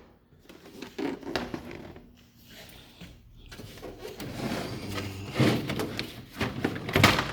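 Hand tools and tool cases knocking and rattling as they are moved around inside a toolbox drawer: a few scattered knocks, then a busier clatter in the second half, with the loudest knock near the end.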